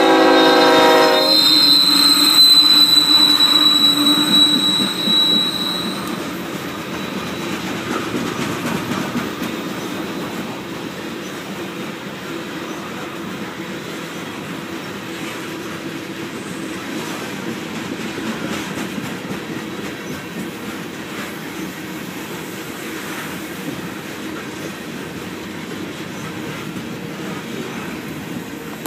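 A diesel freight locomotive's horn chord ends about a second in. A high, steady wheel squeal and the passing locomotive's engine follow for several seconds and fade. Loaded coal hopper cars then roll steadily past, their wheels clicking over the rail joints.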